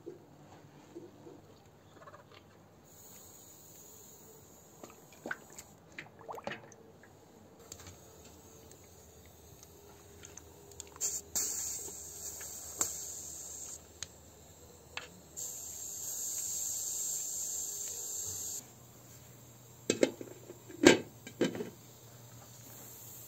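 A lamb's head is handled and lowered into a metal pot of water, with scattered light knocks and spells of hiss. About twenty seconds in, the pot's metal lid goes on with a few sharp clanks, the loudest sounds.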